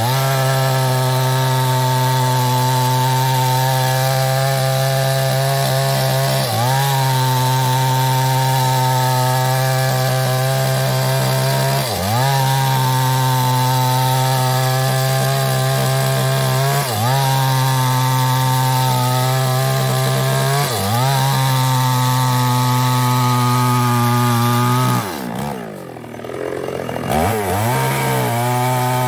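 Chinese-made two-stroke chainsaw running hard while cutting mahogany wood. The engine note dips briefly and recovers about every five seconds. Near the end it sags lower and quieter for about two seconds, then picks back up.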